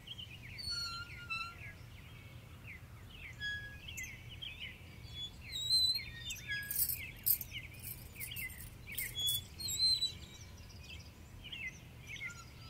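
Small birds chirping and twittering, many short quick calls overlapping throughout, over a faint steady low hum.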